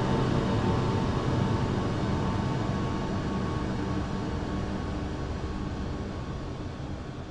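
Steady machine roar with a few held tones over a heavy low rumble, fading out gradually through the second half.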